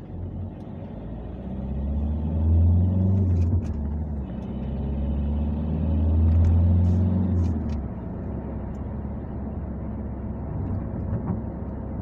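Car engine heard from inside the cabin, pulling away and accelerating in a manual gearbox: the engine note swells, drops about four seconds in at a gear change, swells again, then settles to a steady cruise near eight seconds in.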